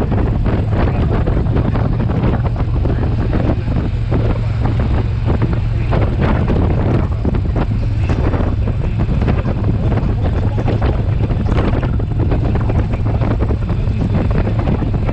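Loud, steady wind rush buffeting the microphone on a 2020 Indian Challenger touring motorcycle riding at road speed. Its liquid-cooled V-twin engine runs steadily as a low hum underneath.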